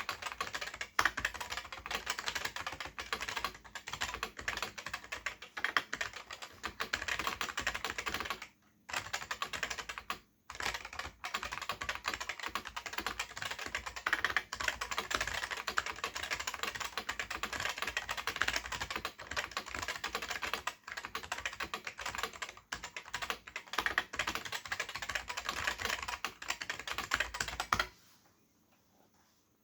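Continuous fast typing on a Sejin SKM-2000 keyboard with Futaba MA switches and ABS keycaps: a dense run of key clicks, pausing briefly twice about a third of the way in and stopping shortly before the end.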